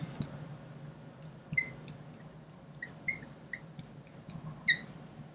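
Marker tip squeaking on a glass lightboard while writing a line of text: about five short, faint, high squeaks with light taps between them.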